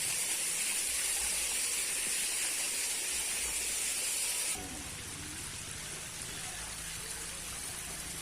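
Steady hiss of rain falling. About four and a half seconds in it drops abruptly to a softer level.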